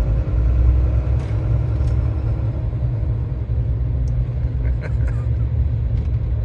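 Iveco Stralis truck's diesel engine running, a steady low rumble.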